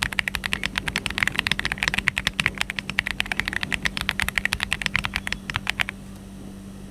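Royal Kludge R75 mechanical keyboard with Phantom Yellow switches being typed on fast: a dense, rapid stream of keystroke clacks that stops about six seconds in.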